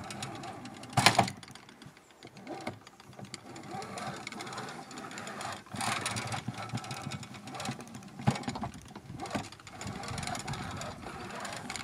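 Bench pillar drill's head being moved on its toothed column with the height lock loosened: irregular metal rattling and clicking, with a sharp knock about a second in. The motor is not running.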